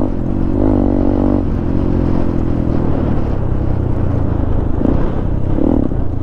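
Motorcycle engine running at a steady pace while riding, a continuous low drone.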